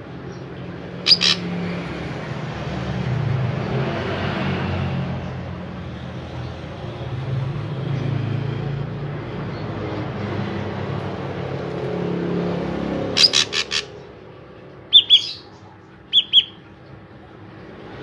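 Ashy drongo calling: a quick burst of sharp notes about a second in, another burst of four quick sharp notes later, then two short clear whistles near the end. Underneath runs a low rumble that swells and fades.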